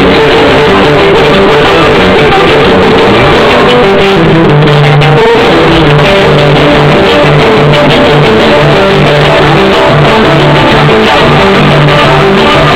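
Loud music with guitar and a bass line of repeated short notes, played through a trio elétrico sound truck's speaker system.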